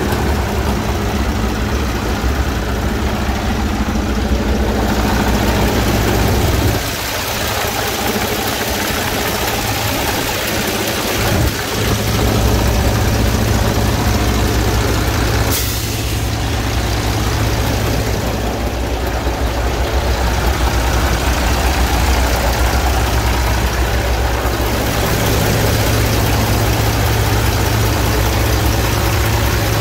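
A Mercedes 12.8-litre inline-six diesel in a Sterling L9500 dump truck, idling steadily with a low rumble. About seven seconds in, the low rumble fades for about five seconds, then comes back.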